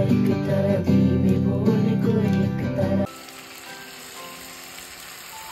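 Acoustic guitar and a woman singing, cutting off suddenly about three seconds in. Then a pan of chicken frying on a gas stove, with a quiet, steady sizzle.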